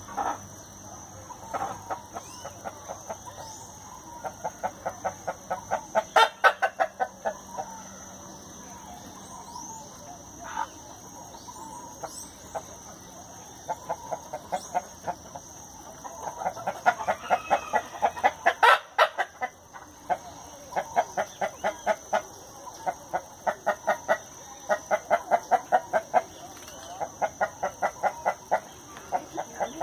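Chickens clucking in runs of short, rapid calls, about five a second, over and over, with a few sharp knocks in between.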